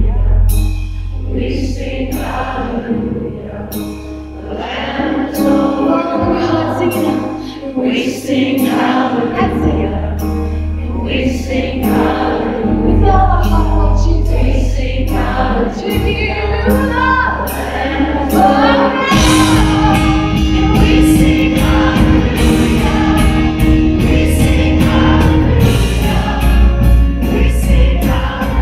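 Live worship band playing: women singing into microphones over acoustic guitar, electric guitar and bass holding long low notes. About two-thirds of the way in, the band grows fuller, with steady cymbal or tambourine strikes.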